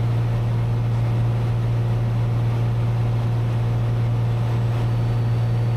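Cessna 182's piston engine and propeller droning steadily at cruise power, with a strong, unchanging low hum.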